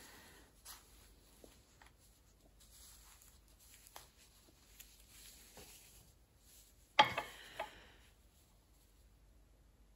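Faint handling noises of nitrile-gloved hands moving plastic nail swatch tips on a magnetic tip stand, with a sharp click about seven seconds in and two lighter clicks just after.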